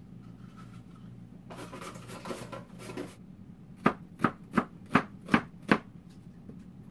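A kitchen knife chopping an onion on a cutting board: six sharp, even knocks at about three a second, after a brief spell of rustling.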